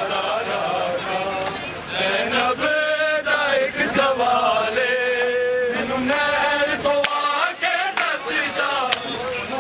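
A group of men chanting a Punjabi noha together on long held notes, with scattered sharp slaps of hands striking bare chests in matam.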